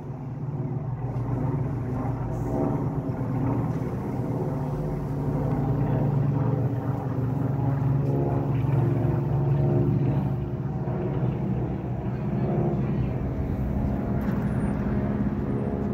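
Piston engines of several small propeller airplanes flying overhead in formation: a steady droning hum that swells a little toward the middle and eases slightly after.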